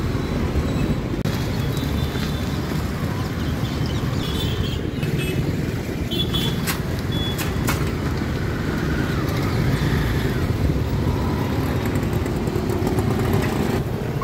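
Mixed road traffic of cars, scooters and motorcycles running steadily across a railway level crossing, with a few short high-pitched tones between about four and eight seconds in.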